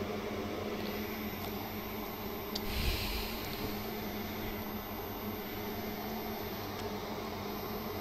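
Steady hum and whir of electronics-repair bench equipment, with a brief hiss and a soft bump about three seconds in.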